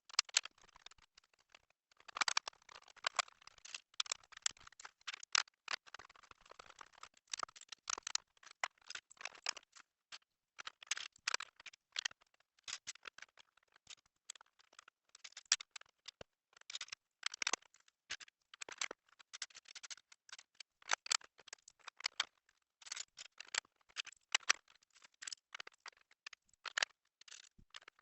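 Small plastic LEGO pieces clicking and rattling as they are handled and pressed together, a rapid, irregular run of sharp little clicks.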